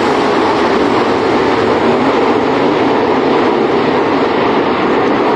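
A field of dirt-track race cars at speed on the oval, their engines blending into one loud, steady drone.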